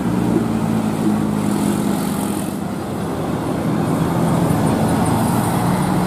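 Coach bus's diesel engine pulling through a tight uphill bend and passing close by, with a car going by just ahead of it. The engine's low hum is steady, slackening a little midway and strengthening again.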